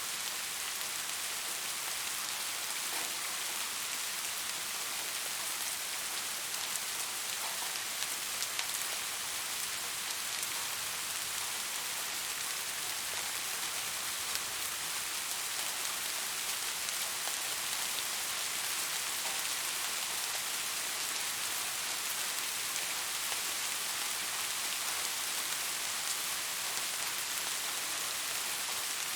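Steady rain falling, a soft even hiss of many raindrops with faint individual drop ticks scattered through it.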